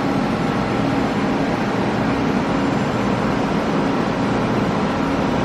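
Steady mechanical running noise with a low hum of several steady tones, typical of machinery running on a shop floor.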